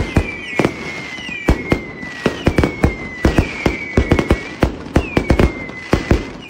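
Fireworks going off: a dense, irregular run of sharp bangs, several a second, over a string of whistling shells, each whistle a high tone that falls slightly in pitch and lasts about half a second to a second.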